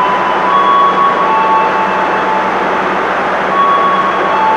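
Passenger train cars rolling slowly out of the station with a steady rumble and a low hum, overlaid by repeated short wheel squeals at several different pitches.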